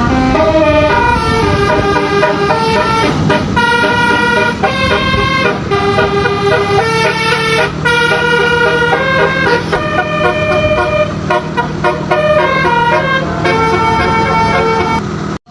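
Multi-note 'basuri' telolet bus horn playing a continuous tune of changing notes over a steady low hum, cutting off abruptly at the very end.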